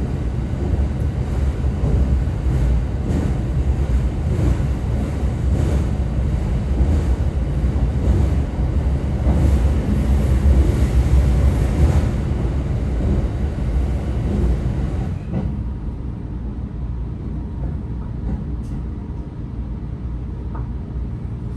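Steady rumble and running noise of a moving passenger train. The noise eases off about two-thirds of the way through.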